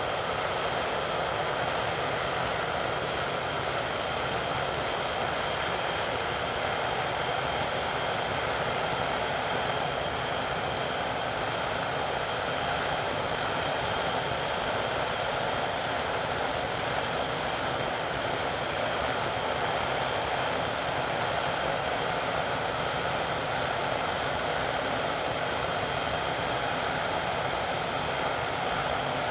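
English Electric Lightning's twin Rolls-Royce Avon turbojets running steadily on the ground: an even jet rush with a high, steady turbine whine.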